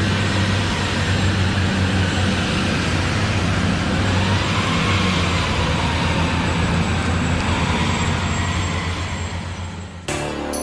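Steady vehicle engine noise with a low hum, dropping away just before the end.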